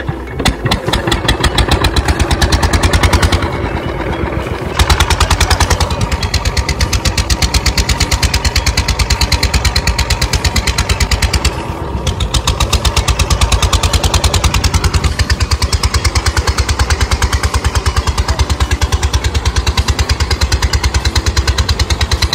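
Stationary single-cylinder diesel engine with a heavy flywheel, pull-started to drive a tubewell pump. It catches straight away and runs with a loud, rapid, even exhaust beat.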